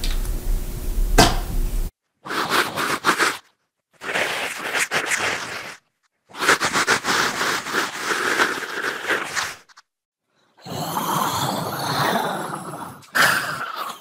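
Horror sound effects: a noisy stretch with a low hum and a sharp click about a second in, then five separate bursts of rough, grainy noise, each one to three seconds long, cut apart by short silences.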